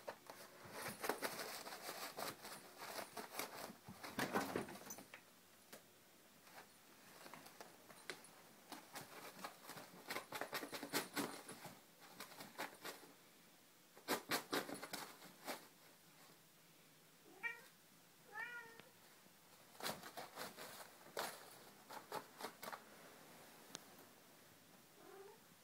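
Bengal cat attacking a roll of paper towel: repeated bursts of rustling, tearing and scratching paper, with two short meows about two-thirds of the way through and a faint one near the end.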